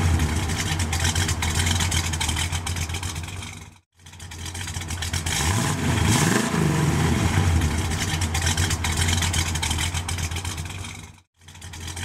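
Car engine running and revving up and down in a short recording that repeats over and over. It drops out briefly about four seconds in and again near the end, then starts over.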